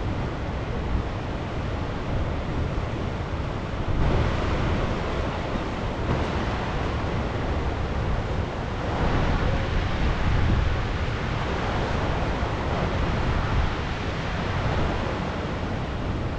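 Steady, loud rushing noise of wind and moving water, swelling about four seconds in and again for a couple of seconds near the middle.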